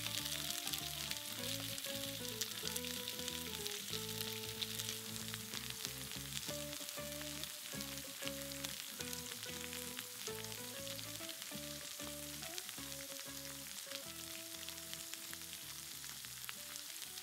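Slices of halloumi sizzling and crackling in hot oil in a stainless steel frying pan, under background music of slow held notes.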